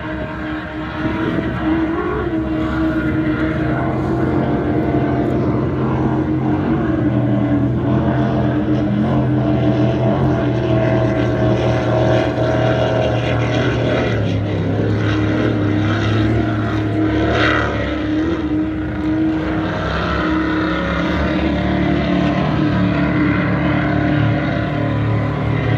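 Racing powerboat engines droning across the water, several engines at once, their pitch shifting slightly as the boats run the course.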